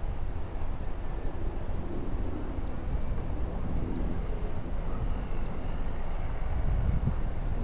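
Gusty wind rumbling on the microphone, with a few faint, short high chirps from birds now and then.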